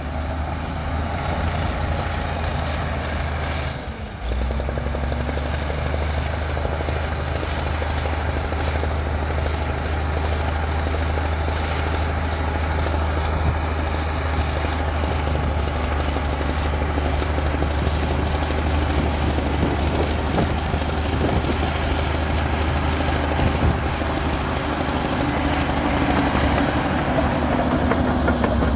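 Bulldozer's heavy diesel engine running steadily with a deep, continuous rumble. There is a brief dip and break about four seconds in.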